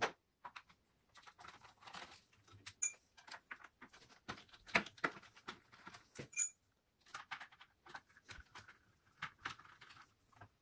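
Scattered light clicks, taps and small metallic clinks of a screwdriver and screws being worked on a bread machine's plastic base plate.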